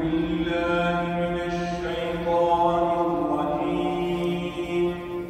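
A man's voice chanting a slow Islamic recitation, holding long notes that bend and waver in pitch.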